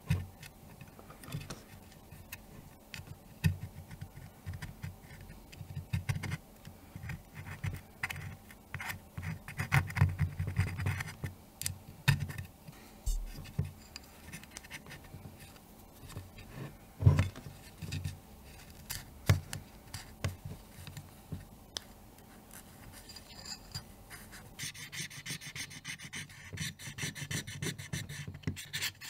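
Cloth wiping and rubbing the inside of a Minolta AL-F rangefinder camera body: scattered small scratches and taps, then steady rubbing for the last few seconds.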